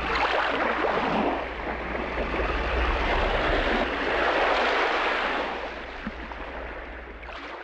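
Ocean surf: waves washing in, swelling and falling back a few times over a low steady hum, then fading out near the end.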